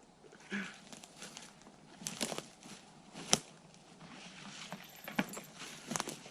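Footsteps through forest undergrowth, with twigs and dry debris crackling underfoot in irregular steps; one sharp snap about three seconds in is the loudest.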